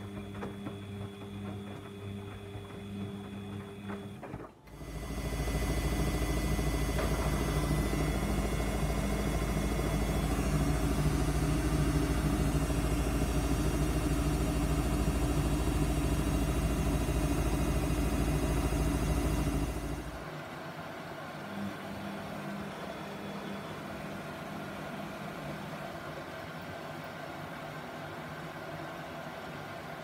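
Samsung washing machine running on a heavy 60°C wash. A quiet steady hum gives way about five seconds in to a much louder, steady mechanical running sound. That sound stops abruptly at about twenty seconds, leaving the quieter hum.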